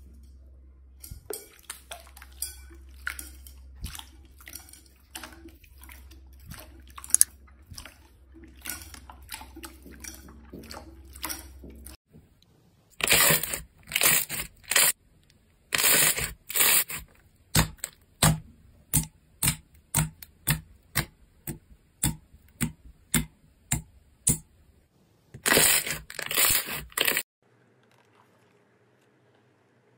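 Slime being handled close to the microphone. At first come many small, fast crackling clicks. About halfway through, these give way to louder separate crunches and pops, roughly one or two a second, which stop a few seconds before the end.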